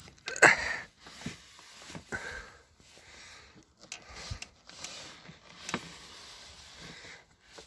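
Rag rubbing and wiping along a car door's window guide channel, with scattered clicks and knocks of handling; the loudest clack comes about half a second in.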